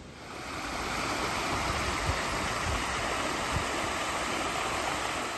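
Swollen March river in flood, its water rushing with a steady hiss that swells in over the first half second, with a few low wind thumps on the microphone.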